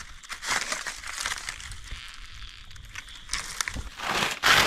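Dry fallen leaves crackling and rustling as a hand digs through leaf litter, with a louder burst of crunching near the end.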